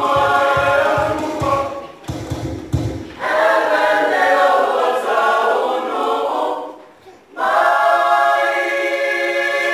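Mixed youth choir singing a cappella in phrases, with a short break near seven seconds in before the voices come back in together. Low regular thumps run under the singing for the first three seconds.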